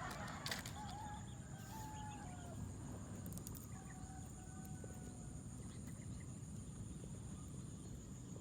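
Faint calls of domestic chickens, including a rooster crowing, with a steady high-pitched whine running underneath.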